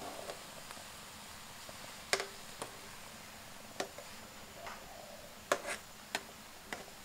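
Metal ladle knocking against the side of an aluminium pot of boiling soup while stirring, about six sharp clinks a second or so apart, the loudest about two-thirds of the way in, over a steady low hiss.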